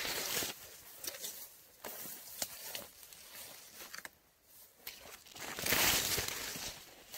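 Dry corn leaves and stalks rustling and crackling as someone pushes through a dried-out cornfield, in uneven bursts, briefly quieter about four seconds in and loudest near the end.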